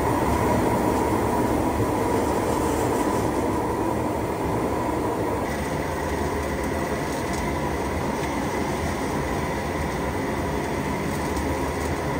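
Gas-fired rotating drum chile roaster running: the mesh drum turns on its electric motor with green chiles tumbling inside, under a steady rushing roar with a faint steady whine.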